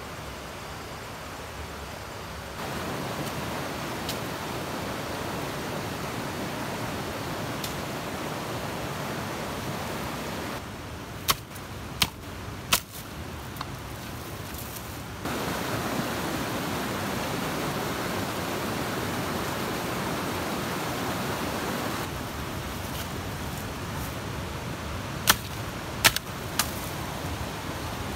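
Steady rushing outdoor noise, with two runs of three sharp cracks of dry bamboo snapping, the cracks well under a second apart; one run comes a little before halfway and the other near the end.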